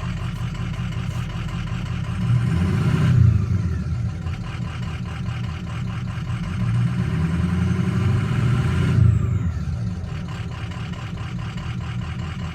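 Ford 6.0 L Power Stroke V8 turbodiesel running at a rough idle, its note swelling louder twice and settling back. The owner suspects a failing ICP (injection control pressure) sensor.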